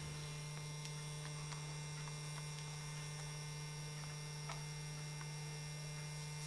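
Steady electrical mains hum, with a few faint light clicks as a hand handles a metal model locomotive.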